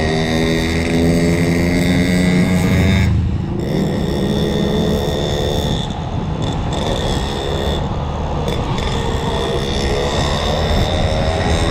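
Yamaha NMAX scooter's single-cylinder engine running as it is ridden. Its pitch sinks over the first three seconds and climbs again near the end.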